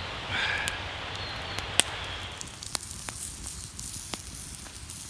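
Wood campfire crackling, with scattered sharp pops; the loudest pop comes about two seconds in. A brief rustle comes under a second in.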